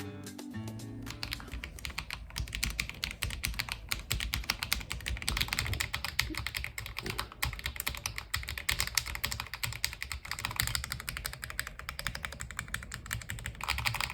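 Fox65 mechanical keyboard with White Fox Linear v2 switches, typed on quickly without its silent cotton installed: a dense, continuous stream of key clacks. About a second in, it takes over from a short bit of music.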